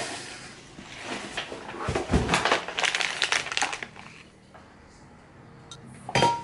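Plastic floss-pick packets crinkling and rustling as they are handled and lifted out of a cardboard box. A single sharp knock with a brief ring comes near the end.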